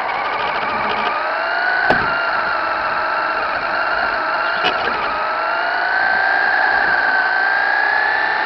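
Traxxas Slash 4x4 RC truck's electric motor and gear drive whining, heard close up from the onboard camera, the pitch rising with speed over the first two seconds, dropping back, then climbing slowly through the second half. A sharp knock about two seconds in.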